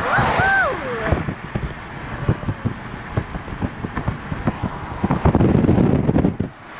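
Car driving along a road, heard from inside the car: steady road and wind noise with irregular wind buffeting on the microphone, and a louder rush of wind about five seconds in.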